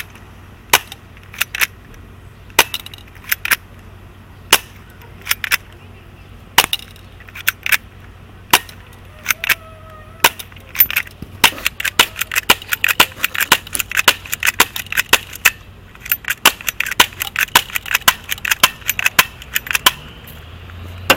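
Walther P22 airsoft pistol firing shot after shot, each a sharp crack: spaced about a second apart at first, then coming fast, several a second, from about halfway through.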